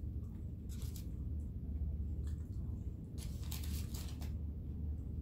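Lunch being handled and eaten: a few short rustles, about a second in and again around three to four seconds in, over a steady low hum.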